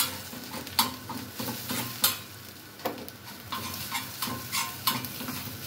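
Kitchen knife scraping and tapping on a flat iron tawa as scrambled egg is stirred and chopped, in irregular strokes that come more often in the second half, over the sizzle of the egg frying.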